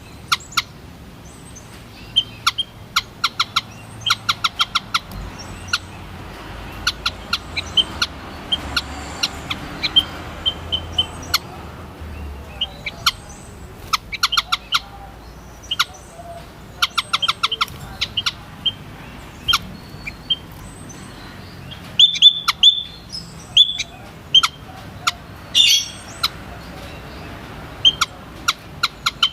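White-headed munia calling: many short, high-pitched notes, often in quick runs of several, with louder calls near the end.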